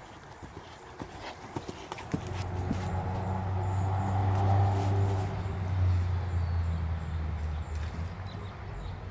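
A horse's hooves thudding on the sand arena as it is ridden past, followed by a low, steady hum that swells over a few seconds and then fades.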